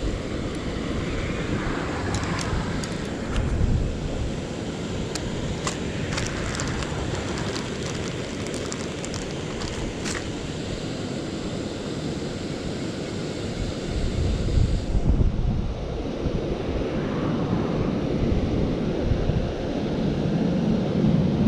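Wind buffeting the microphone, a steady rumbling rush, with a few light clicks in the first half.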